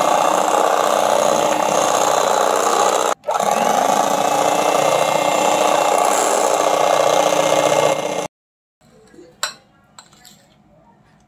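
Electric hand mixer with twin wire beaters running steadily, whipping buttercream frosting in a bowl. It breaks off for a moment about three seconds in, runs on, and cuts off about eight seconds in.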